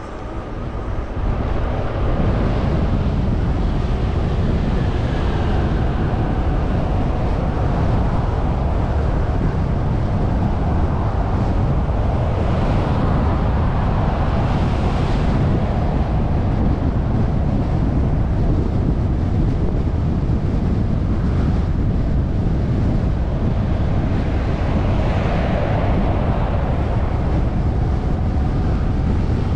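Wind buffeting an unshielded GoPro microphone on a fast-moving bicycle: a loud, steady rumbling rush that swamps every other sound. It comes up sharply about two seconds in, then holds.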